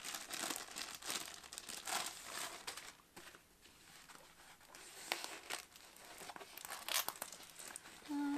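Plastic packaging crinkling and rustling in irregular bursts as a rolled diamond painting canvas is slid out of a clear plastic tube and unrolled, its clear protective film crackling.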